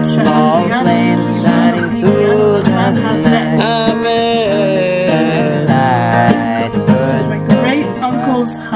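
Background music: an acoustic guitar accompanies a wavering melody line.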